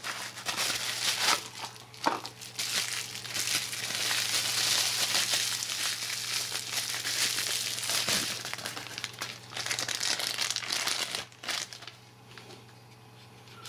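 Plastic packaging crinkling and rustling as it is handled, with small clicks and knocks, continuous for most of the time and dying down near the end.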